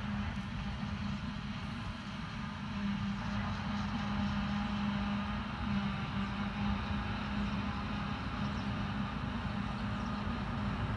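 Self-propelled forage harvester and the tractor beside it, heard from across the field, running steadily at work as a continuous drone with a constant hum, a little louder from about three seconds in.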